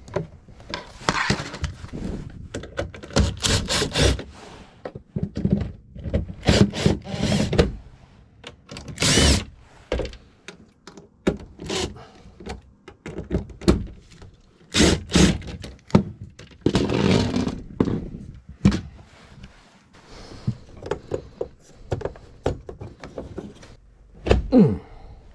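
Irregular knocks, clatters and scrapes of a plastic cover and a wooden cabinet being handled as an RV's power distribution panel is opened up and worked on by hand.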